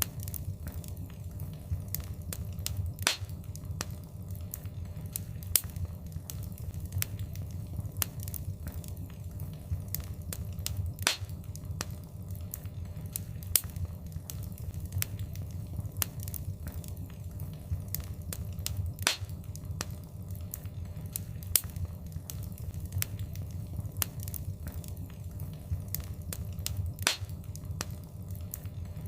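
Wood fire crackling: a steady low rumble of flames with frequent small snaps, and a louder pop about every eight seconds.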